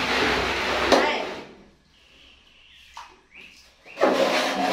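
Bath water splashing and pouring in two spells, about a second and a half at the start and again from about four seconds in, with a sharp knock about a second in.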